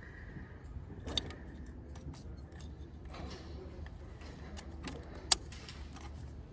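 Scattered light clicks and plastic handling knocks as new ignition coil packs are pushed down into place in a BMW straight-six engine, with one sharp click about five seconds in.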